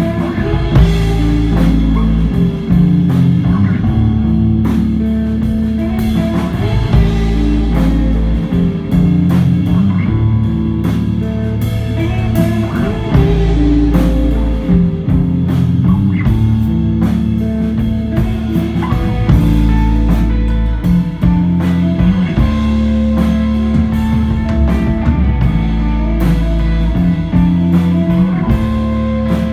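A live desert rock band playing loudly: electric guitar lines over held bass guitar notes, with a drum kit hitting steadily.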